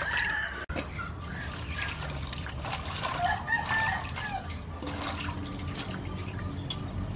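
Water splashing and dripping as leafy greens are swished and rinsed by hand in a metal basin, with a rooster crowing about three seconds in.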